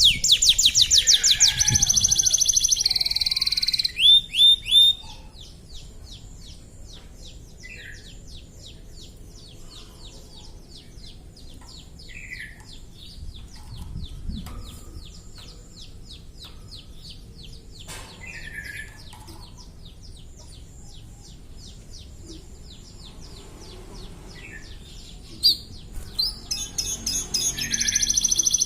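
Domestic canary singing: loud, fast rolling trills, then a long quieter run of quick repeated notes, then loud trills again near the end.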